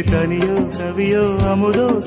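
Tamil film song playing: a melody over a steady drum beat.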